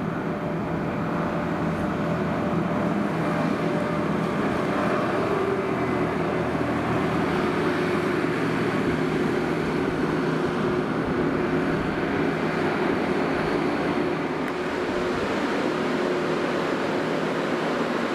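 New Holland skid-steer's diesel engine running steadily under work, easing off slightly near the end.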